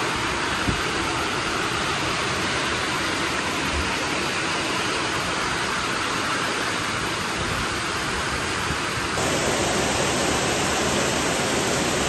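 Heavy rain pouring down in a steady hiss, splashing onto paved ground and running off roof edges. About nine seconds in it gets louder and fuller.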